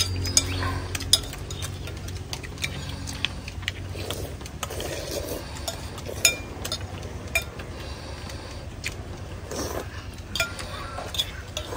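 Metal spoons clinking and scraping against ceramic soup bowls as several people eat noodle soup: irregular sharp clinks, sometimes two or three close together.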